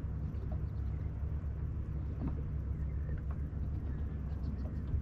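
Water lapping against a kayak's hull over a low, steady rumble of wind on the microphone, with a few faint ticks and knocks.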